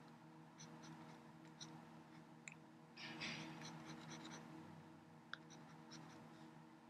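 Faint taps and scratchy strokes of a pen stylus on a Wacom Bamboo drawing tablet as lines are sketched, with a denser burst of scratching about three seconds in, over a low steady hum.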